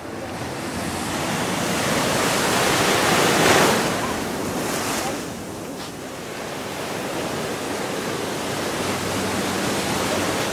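Ocean surf: a wave's rush swells to a peak about three and a half seconds in and falls away, then a steady wash of water continues.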